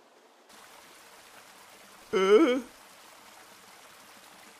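Faint steady rush of a waterfall, with a short wordless vocal exclamation about two seconds in, its pitch rising and falling.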